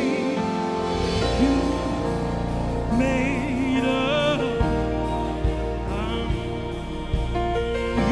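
Gospel song: singing with vibrato over an instrumental band accompaniment, with sustained bass notes and a steady beat.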